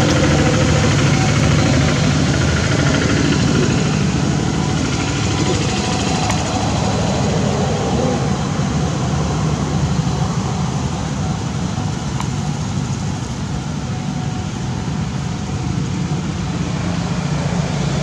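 A steady low engine rumble with a noisy hiss over it, like a motor vehicle running nearby.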